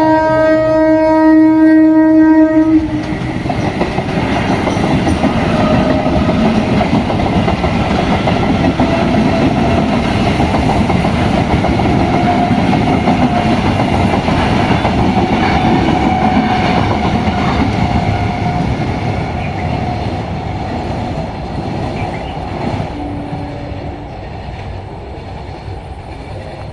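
EMU electric local train's horn blowing one steady multi-tone blast that cuts off about three seconds in. The train then rushes past with loud wheel clatter on the rails, the noise slowly dying away over the last several seconds.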